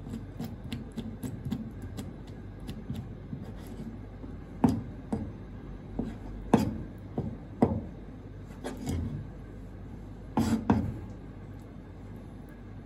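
Kitchen knife tapping and scraping on a plastic cutting board while trimming wet raw red clam (ark shell) flesh: light ticks at first, then a run of sharp knocks through the middle and a double knock near the end.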